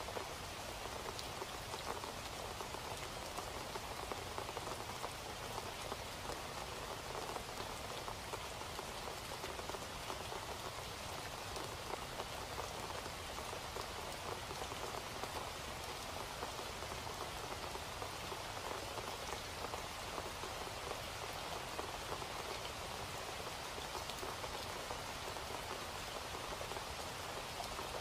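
Steady rain: an even hiss dotted with many small drop ticks, unchanging throughout.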